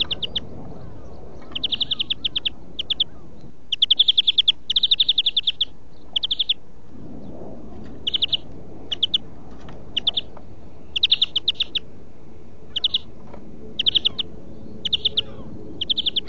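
European greenfinch singing: short bursts of rapid, high trilled notes, one after another with brief pauses between them.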